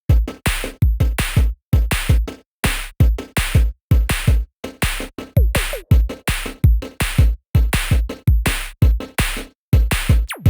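Electronic beat-driven music with a heavy kick drum, deep bass and ticking hi-hats, cut into short choppy bursts. It starts suddenly out of silence.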